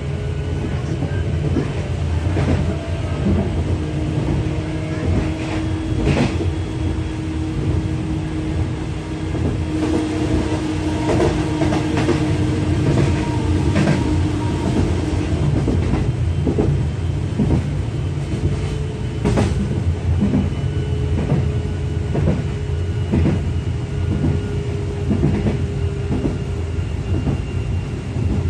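A Tokyu 8500-series electric commuter train running, heard from inside the car: a steady low hum from the running gear and traction motors, with wheels clacking over rail joints, the loudest clacks about 6, 10, 14 and 19 seconds in.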